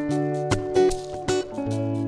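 Background music: a light tune on plucked acoustic guitar, with notes struck every few tenths of a second.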